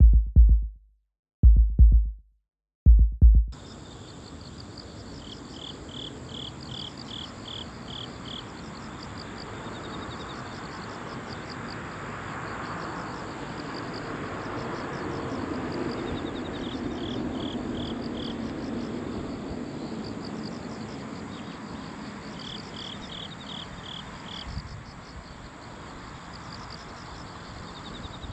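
Four heavy bass-drum hits from edited music in the first few seconds. Then outdoor ambience: insects, likely crickets, chirp in short rhythmic runs of about three pulses a second, over a steady rushing background.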